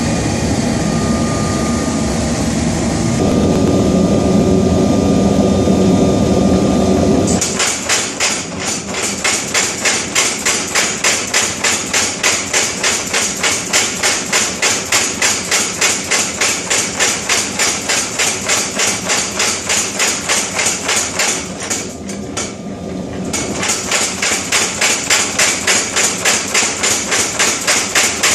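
A steady roar for the first seven seconds or so, then a mechanical power hammer striking hot steel in a fast, even rhythm of about three blows a second, with one short pause about two-thirds of the way through.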